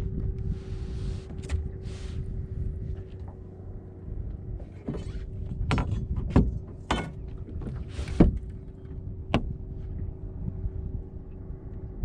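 Sounds on a small fishing boat: a steady hum over low rumbling wind-and-water noise, with short rushing hisses and a handful of sharp knocks, most of them between about six and nine and a half seconds in.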